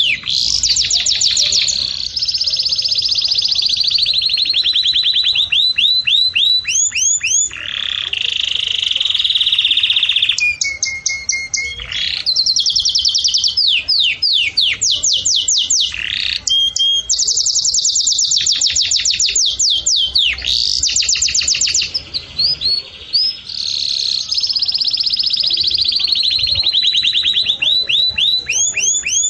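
A small songbird singing continuously in long, fast trills of rapidly repeated high chirps, one run following another with only brief pauses.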